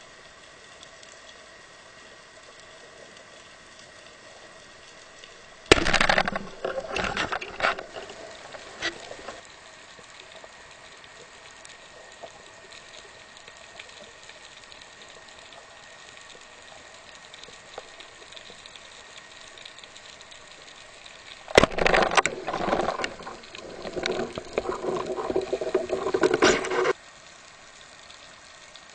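Underwater water noise heard through a camera housing: a low steady hiss, broken twice by loud bursts of rushing, bubbling water, about six seconds in and again from about twenty-two seconds, the second lasting some five seconds and stopping abruptly.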